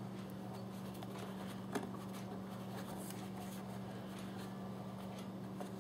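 Quiet room tone with a steady low hum, and one faint tap a little under two seconds in from hands handling a plastic pistol case.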